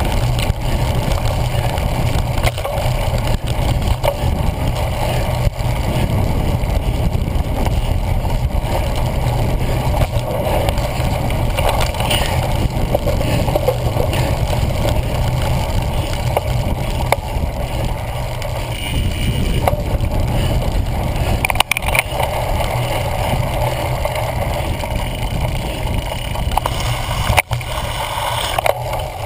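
Wind buffeting a GoPro Hero 1 on a cyclocross bike riding fast over bumpy grass: a steady low rumble with the rattle of the bike over the ground. A couple of sharp knocks from bumps come in the second half.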